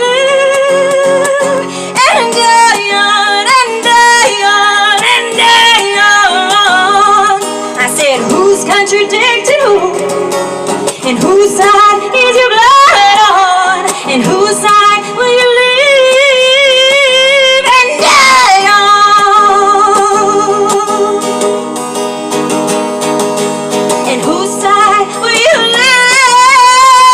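Music: a female voice singing long, wavering held notes and wordless vocal runs over guitar accompaniment.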